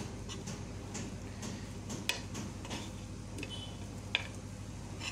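A steel spoon turning pieces of palak vadi frying in shallow oil with sesame seeds: scattered light ticks and clinks against the pan, over a faint steady low hum.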